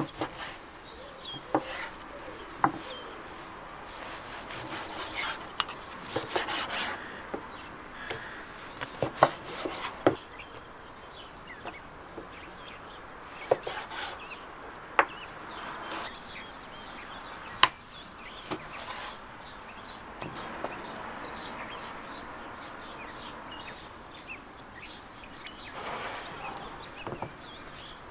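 A knife cutting raw lamb into chunks on a wooden cutting board: irregular sharp knocks of the blade against the wood, with quieter scraping and slicing between them.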